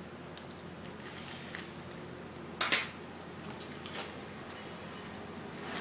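Foil baseball card pack being cut open with scissors and its wrapper pulled apart: scattered snips and crinkles, with one loud sharp crackle about two and a half seconds in and a smaller one about a second later.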